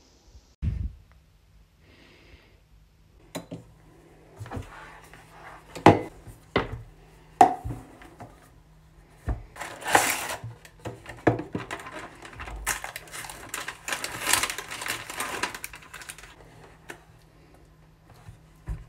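Packaging of mochi ice cream being handled and opened on a wooden desk: scattered knocks and taps of the cardboard box, then a few seconds of crinkling plastic from the tray's wrapping. A faint steady low hum runs underneath.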